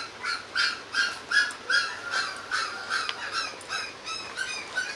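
Puppy crying in a run of short, high yelps, about three a second, each with a slight rise and fall in pitch.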